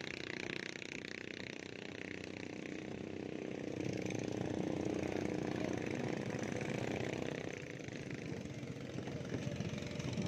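An engine idling steadily with an even pulsing beat, swelling louder for a few seconds in the middle.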